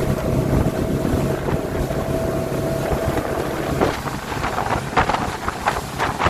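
A motorboat's engine runs steadily, with wind buffeting the microphone. About four seconds in, the steady engine tone drops away and short, irregular rushes of wind or water noise take over.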